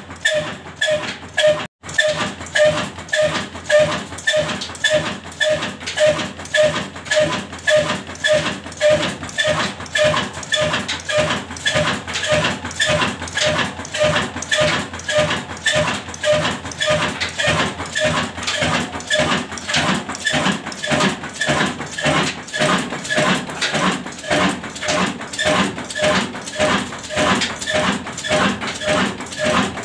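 Insaf Engineering Works (Daska) horizontal single-cylinder diesel engine running steadily, its exhaust beating evenly at about two beats a second. The sound cuts out for an instant about two seconds in.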